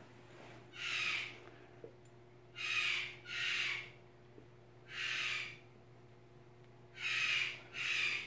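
Six short breathy hisses, each about half a second long, the second and third and the last two coming in quick pairs.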